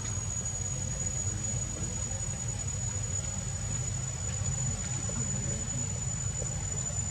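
Steady insect drone, a thin high tone that holds unchanged, over a constant low rumble.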